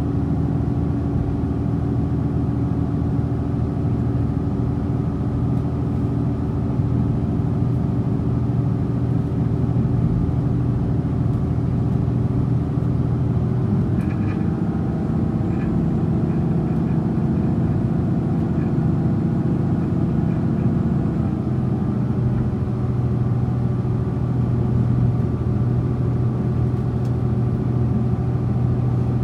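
Diesel engines of a DR3100-series diesel multiple unit running steadily under load, heard from inside a passenger car. The engine note shifts about halfway through.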